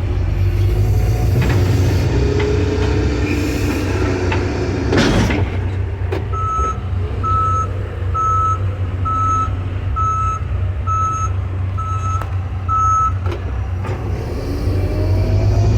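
John Deere backhoe's diesel engine running steadily, with its backup alarm beeping eight times, about one beep a second, starting about six seconds in as the machine reverses. A loud clank sounds shortly before the beeping, with lighter rattles of the machine around it.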